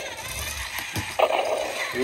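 Jada Toys Heat-Ray Breath Godzilla remote-control toy working its tail-whip action: a small electric motor and plastic gears whirring as the tail swings, with a sharper knock a little over a second in.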